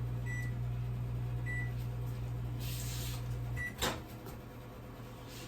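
Microwave oven running on defrost with a steady low hum while melting butter. The hum cuts off about three and a half seconds in, and the door is clicked open a moment later.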